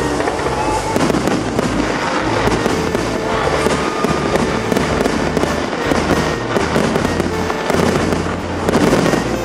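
Fireworks bursting and crackling in quick succession, with a louder flurry of bangs near the end, over music.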